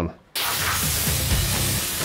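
Background music cutting in suddenly about a third of a second in and then playing on steadily, with low notes changing beneath a dense upper layer.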